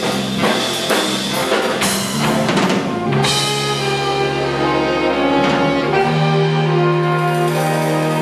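Big band playing live: horns over a rhythm section, with drum hits punctuating the chords for the first three seconds, then the band holding long sustained chords.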